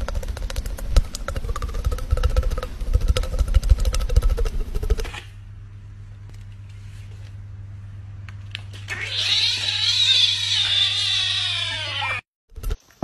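A rough, noisy rumble with many clicks for about five seconds, then a low hum, then a kitten meowing in long, wavering cries rising and falling in pitch for about three seconds near the end, reaching for a treat packet.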